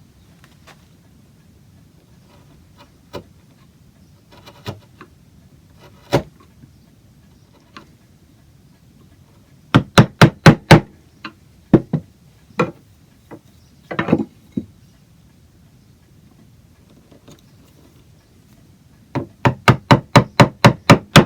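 A wood chisel being struck to chop out the bottom of a mortise in an oak chair leg, squaring it to a marked line. Sharp separate blows: a few single strikes, then a quick run of about six about ten seconds in, a few more, and a fast run of about ten near the end.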